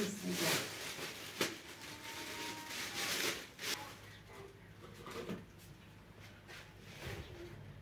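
Plastic bags rustling as they are handled, in several short bursts with a few light knocks, over a low steady hum; it dies down after about four seconds.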